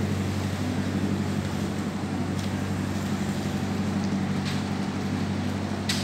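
Boat engine idling steadily, a low even drone, with a few faint clicks.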